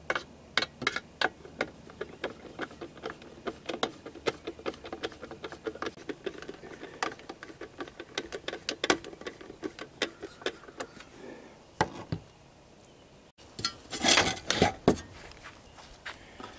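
Sheet-metal housing of a Lee Production Pot lead-melting furnace clinking and rattling as it is slid and pressed back together over its base: many light metal clicks and knocks, with a short louder burst of clatter near the end.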